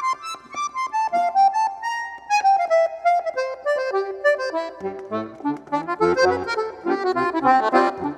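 Accordion (sanfona) playing a descending run of single melody notes, then bass notes and chords come in about five seconds in and the music settles into a steady rhythmic beat.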